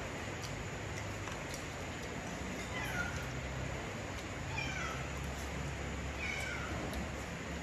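A domestic cat meowing three times, starting about three seconds in, each meow short and falling in pitch, about a second and a half apart.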